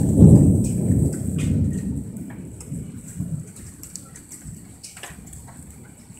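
A loud rumble of thunder that fades away over about two seconds, with heavy rain falling and scattered drips throughout.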